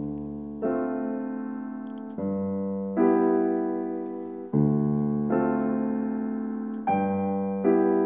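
Slow piano music: sustained chords struck about every second or so, each left to ring and fade before the next.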